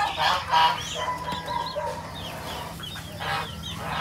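Chicks peeping in a steady run of short, high chirps, about three a second, with lower chicken clucking mixed in.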